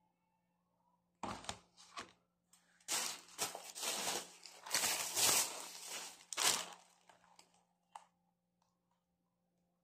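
Plastic shopping bag and plastic food packaging crinkling and rustling as grocery items are handled: two short crinkles, then several seconds of rustling, and a light tap near the end.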